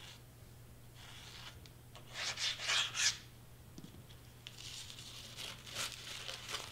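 Crepe streamer paper rustling and rubbing against foam board as it is handled and pressed down, loudest about two to three seconds in, with a softer stretch of rustling near the end.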